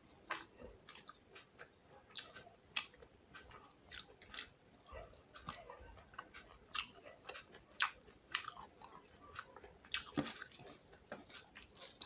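Close-up eating sounds: chewing and soft wet mouth clicks as fish and rice are eaten by hand, in short irregular bursts.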